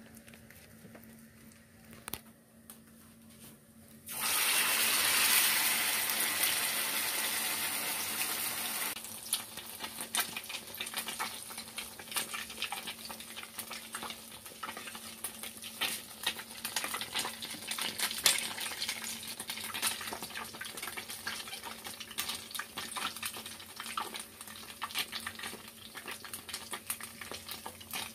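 About four seconds in, a loud steady hiss starts suddenly, fades a little, and cuts off some five seconds later. After it, hot frying oil crackles steadily with many small pops.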